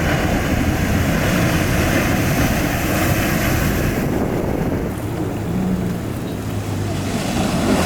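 Wind buffeting the microphone over the steady rush of ocean surf, with a low rumble that eases briefly about five seconds in.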